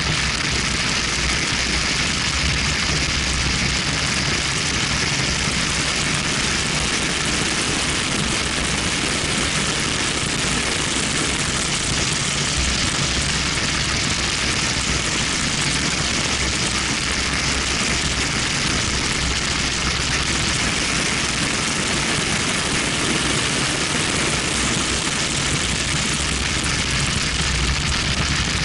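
Steady wind rush over an outside-mounted camera microphone on a BMW 1M at track speed, with its twin-turbocharged straight-six engine and tyre noise running underneath.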